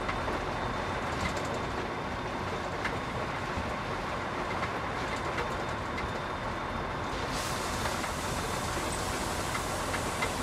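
Cab interior noise of a container truck on the move: steady diesel engine and road rumble, with small clicks and rattles from the cab. A brighter hiss comes in about seven seconds in.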